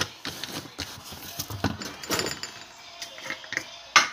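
Kitchen handling noise: a metal spoon scraping and clicking against a plastic bowl and containers, with a sharp knock near the end.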